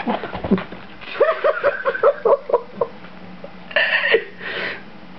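A woman giggling softly, a quick run of about eight short high notes, followed by two short breathy sounds near the end.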